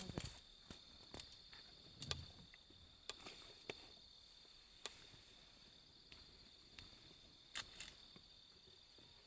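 Insects trilling steadily at a high pitch, with about a dozen sharp snaps and clicks scattered through it, the loudest about two seconds in and near the end.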